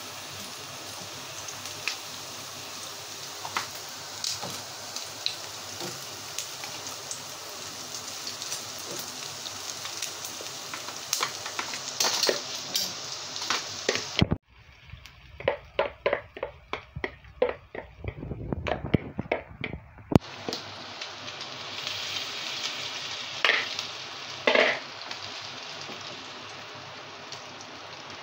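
Chicken pakora patties shallow-frying in olive oil in a pan: a steady sizzle with scattered sharp crackles and pops, and clicks of metal tongs as the patties are turned. For several seconds in the middle the sizzle drops away, leaving a quick run of clicks and knocks.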